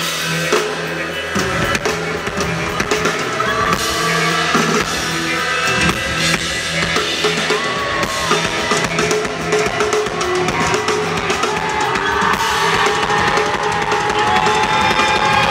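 Live rock band playing an instrumental passage: drum kit with bass drum and snare, electric bass and guitars, with sustained notes that slide in pitch toward the end.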